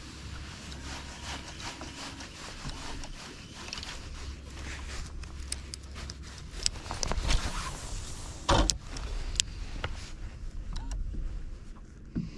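Spinning reel being cranked, its rotor whirring with rapid clicks, over a low steady rumble. One sharp knock comes about eight and a half seconds in.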